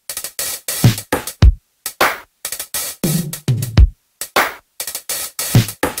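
Electronic drum-machine beat alone: deep kick-drum thumps and sharp snare-like hits in a broken, stop-start pattern, with no other instruments.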